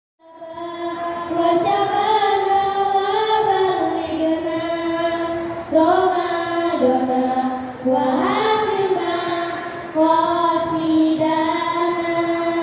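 A group of girls singing together in unison, holding long notes in a slow melody, with new phrases entering every couple of seconds in the second half.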